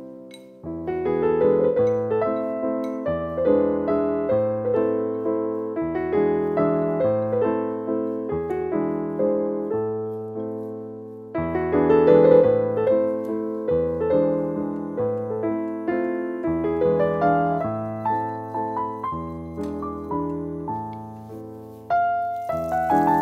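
Solo piano background music: a gentle melody over low bass notes.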